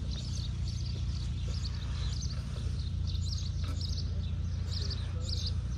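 Small birds chirping and singing in short, repeated phrases over a low, steady rumble. The aircraft engine is not running.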